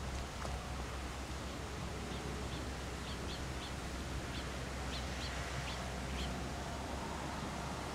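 Outdoor background rumble and hiss, with a small bird giving a series of short, high chirps between about two and six seconds in.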